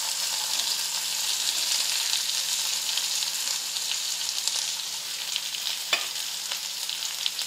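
Sliced onions frying in hot oil with cumin seeds in a kadai: a steady high sizzle just after the onions hit the oil, easing slightly toward the end. A single sharp click comes about six seconds in.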